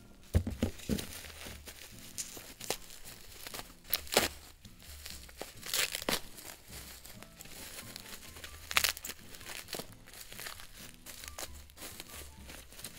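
Plastic bubble wrap and packing tape crinkling and tearing as they are pulled and cut open by hand, with several sharp crackles along the way.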